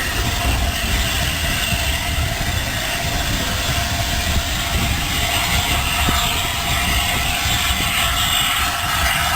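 Railway train running: a continuous, even rumble of wheels and rail noise, with no clear beat.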